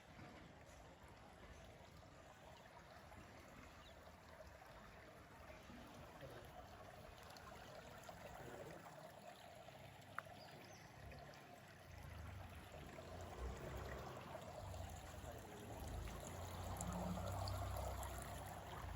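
Faint steady rushing noise outdoors with no speech, joined about twelve seconds in by irregular low rumbles that grow louder toward the end, and a single sharp click about ten seconds in.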